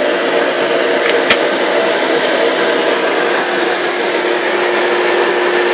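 Dust collector running steadily, pulling air through a CNC router's dust boot: a continuous rush of air with a steady motor hum. A single sharp click about a second in.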